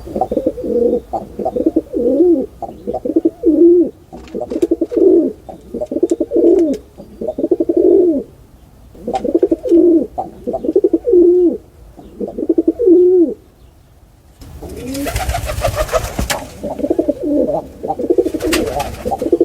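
Pigeons cooing: a run of low coo phrases, each about a second long and dipping in pitch, with short gaps between them. About fifteen seconds in, a loud burst of rustling noise lasts around two seconds, and a shorter one follows near the end.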